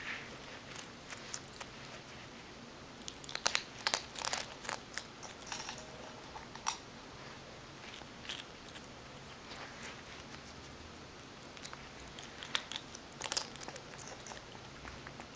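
A skunk chewing soft food: irregular clicking and smacking of its jaws and mouth, in bursts that come thickest a few seconds in and again near the end.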